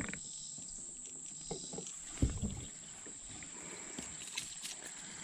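Faint, steady high-pitched drone of insects, with a few light ticks and a short dull knock on the plastic kayak about two seconds in, as a caught largemouth bass is handled over the deck.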